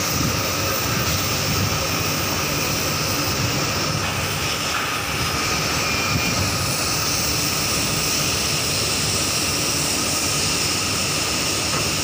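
Steady mechanical drone of a ship's machinery, engines and ventilation fans, heard on deck, unchanging throughout with a faint steady whine on top.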